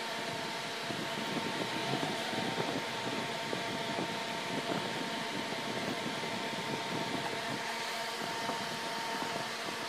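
Steady mechanical hum and hiss with a faint steady tone, like a room fan, under scattered soft rustling and handling noises of fabric being tucked and adjusted by hand.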